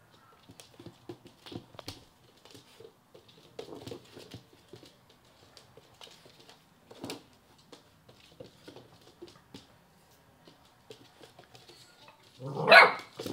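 Black Labrador puppy's claws clicking and pattering on a laminate floor as it noses and paws at a half lemon, then one loud short bark near the end.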